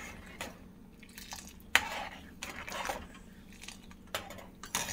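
Metal spoon stirring thick milk in a saucepan, scraping and clinking against the pan at irregular moments, the loudest scrape a little under two seconds in. The milk is being stirred so that grated date-palm jaggery melts into it.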